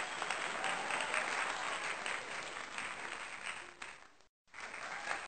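Applause: many hands clapping in a steady, dense patter that cuts out abruptly for a moment about four seconds in and then starts again.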